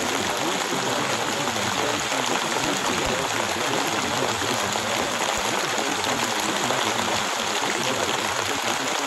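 Recorded rain: a steady, even rushing hiss with no breaks or single drops standing out.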